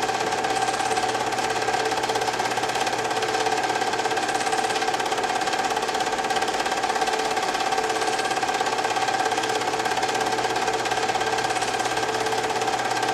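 Film projector running: a steady mechanical whir and rapid, even chatter from the film transport, with a constant hum.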